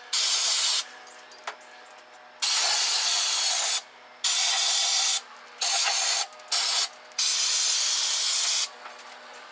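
Aerosol can of carburetor cleaner spraying in six bursts of varying length, the longest about a second and a half, with short quiet gaps between them. It is being sprayed onto a sticking carburetor choke linkage to loosen the gunk that binds it.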